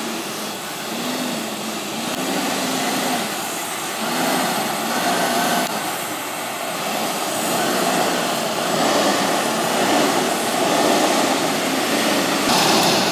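Sterling Acterra garbage truck's diesel engine running as the truck moves slowly past, a steady mechanical noise that grows louder as it comes close.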